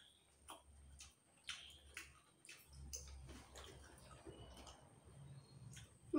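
Faint, scattered small clicks and smacks of two people eating with their hands, fingers working food on plates and chewing, over a low steady hum.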